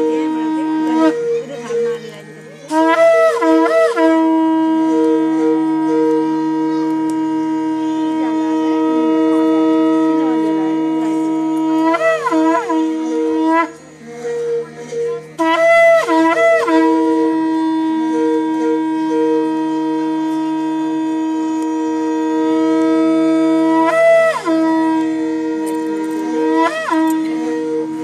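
Conch shell (shankha) blown in long, steady sustained blasts, each held for many seconds, with two short breaks for breath, about two seconds in and about halfway through. Around each break and a couple of times later the note flips briefly upward in short warbles before settling back.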